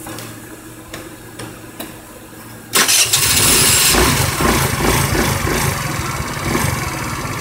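A scooter engine with a 100cc big bore kit, jump-started with jumper cables. After a few faint clicks it catches suddenly almost three seconds in, and then runs at an idle set high because it won't idle low since the big bore went in.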